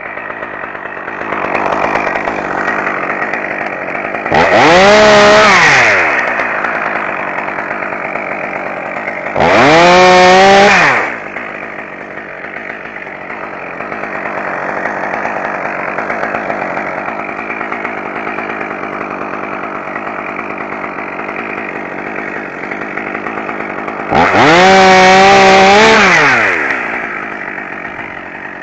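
Two-stroke chainsaw revved hard three times for about two seconds each, cutting through branches during pruning, and running at a lower, steady level between the cuts.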